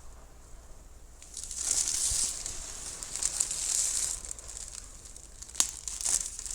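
Compressed air hissing from a paint spray gun in two bursts: a long one of about three seconds, then a short one near the end, with a sharp click between them.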